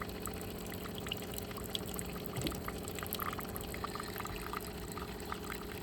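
De'Longhi bean-to-cup coffee machine's pump running with a steady hum while water pours into the cup, with small trickling ticks. Only water comes through: the grinder has stopped working, so no coffee is brewed.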